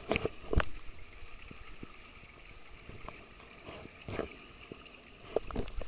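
Two dogs wrestling in dry dirt: paws and bodies scuffling on the ground, with a few short knocks and scrapes, a cluster of them near the end.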